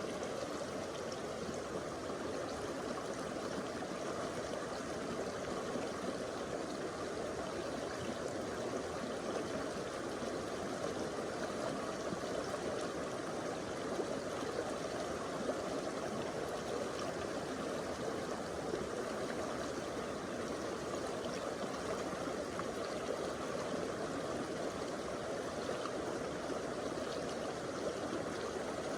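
Stream water flowing steadily over rocks.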